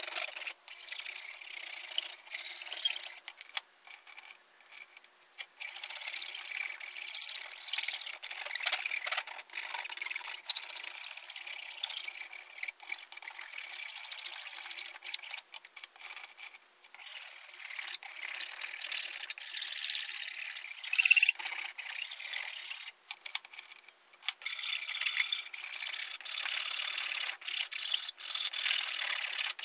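Hand rasp scraping back and forth across the end of a wooden hatchet handle, shaping and rounding it in runs of quick strokes with a few short breaks. One louder scrape or knock comes about two-thirds of the way through.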